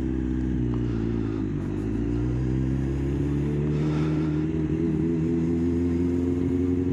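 Kawasaki ZX-9R's inline-four engine running at low revs as the motorcycle rolls slowly in traffic, heard from the rider's seat. The engine note sags slightly early on, then holds steady.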